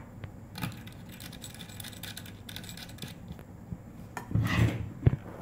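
Metal coupling nut of an 8-pin aviation connector being screwed by hand onto its socket: light metallic clicks and rubbing as the threads turn, with a louder handling bump about four and a half seconds in and a sharp click just after.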